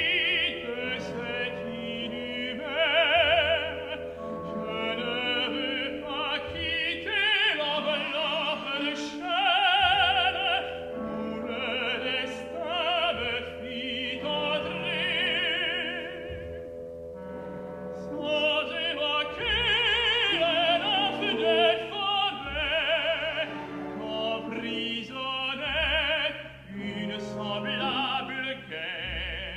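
A tenor singing an operatic solo in French, with wavering held notes, over a soft orchestral accompaniment.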